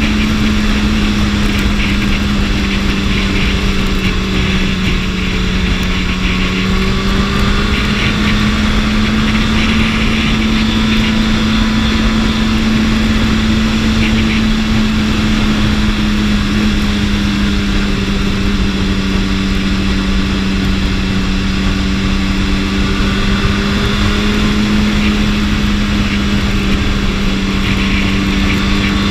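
BMW S1000RR's inline-four engine running under way at a steady, nearly constant pitch, with wind rushing over the microphone.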